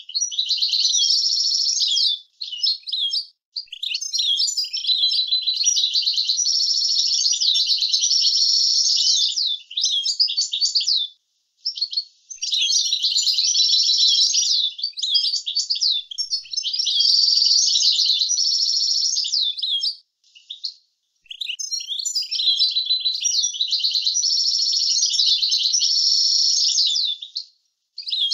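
European goldfinch singing its rapid twittering song in long phrases, with short pauses of about a second between them. The recording is clean, with no background noise.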